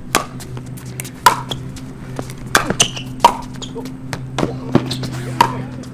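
Pickleball rally: a hard paddle striking the plastic ball with sharp pops, the loudest about every two seconds, with the ball's bounces on the hard court in between. A steady low hum runs underneath.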